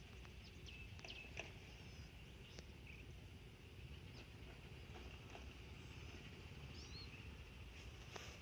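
Faint open rice-field ambience: a steady high insect chirring, with a few short bird chirps and occasional faint clicks.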